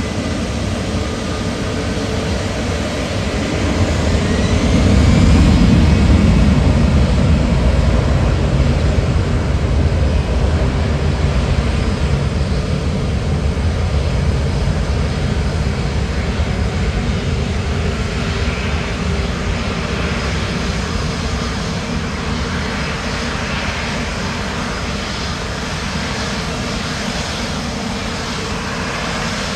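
Airliner engines rumbling as the aircraft passes close by, swelling to their loudest about five to seven seconds in and then slowly fading. A whine rises in pitch a few seconds in.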